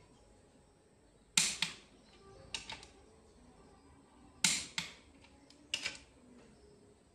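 Short, sharp clacks and taps of parts being handled on the top of a bare Hino J08E diesel engine block during assembly, coming mostly in quick pairs, the loudest about a second and a half in and again about four and a half seconds in.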